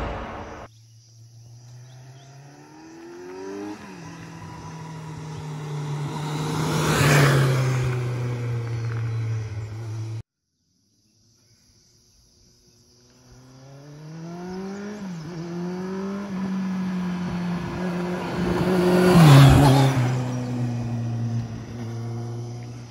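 Kawasaki Z900 inline-four motorcycle accelerating hard past twice: the engine note climbs through several upshifts, gets loudest as the bike goes by, then fades. The first run cuts off suddenly about ten seconds in, and after a few seconds of silence a second run builds.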